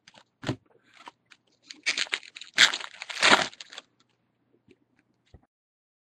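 Trading card pack wrapper being torn open and crinkled, loudest from about two to four seconds in, after a few small clicks and rustles of card handling.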